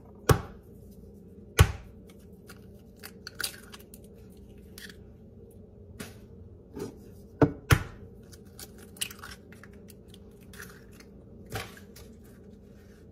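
Eggs being cracked one at a time, each a sharp knock of shell on a hard edge, one of them a quick double knock, with small shell and handling ticks in between.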